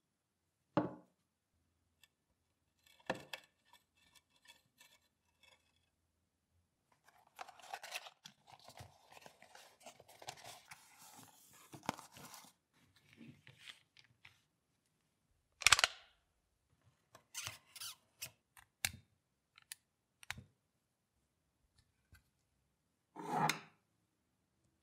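Workbench handling noises: a couple of knocks, then several seconds of rustling and crinkling as a cardboard box is opened. After that come a string of short sharp clicks or snips and, near the end, a louder brief rustle.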